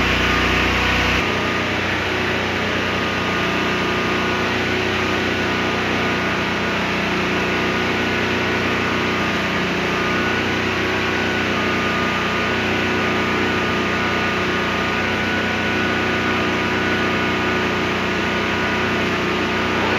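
CNC marble-cutting machine running steadily, a dense mechanical noise with several steady whining tones; a deep low hum cuts out about a second in.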